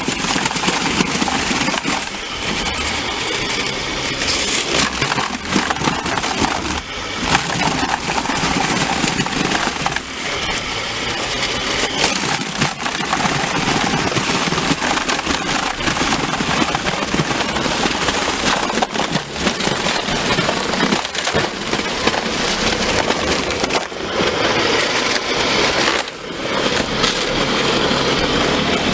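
Electric snow blower chewing through icy, crusted snow: a loud, continuous crunching and crackling of ice being broken up, dipping briefly a few times.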